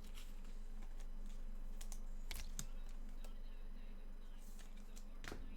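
Scattered light clicks and taps, with a couple of brief scrapes, from trading cards and their packaging being handled, over a steady low hum.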